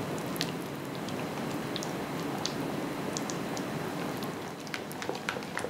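Silicone spatula stirring soft cream cheese batter with fresh cream in a glass bowl: a steady wet mixing noise with a few faint clicks.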